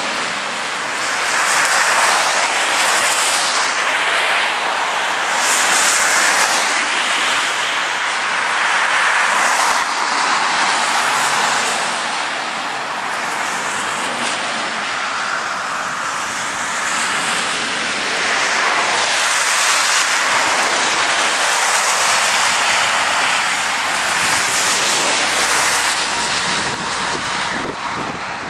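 Road traffic passing on a wet, slushy road: tyres hissing through slush, swelling and fading several times as lorries and cars go by.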